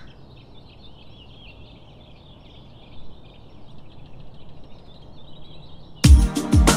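Faint woodland birdsong: many small, high chirps from several birds over a soft background hiss. About six seconds in, music cuts in much louder, with deep bass-drum hits and sustained chords.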